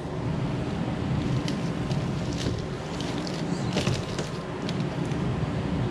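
Steady low machine hum, with a few faint clicks and rustles over it.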